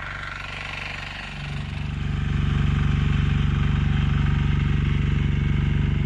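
An engine running steadily with a fast even beat, growing louder over the first couple of seconds and then holding level.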